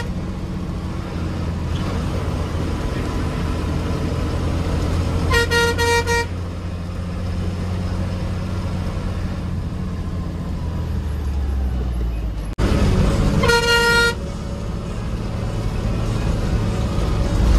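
Bus engine running with a steady low drone, heard from inside the driver's cab, with the bus horn sounded twice, about five and thirteen seconds in, each toot under a second long.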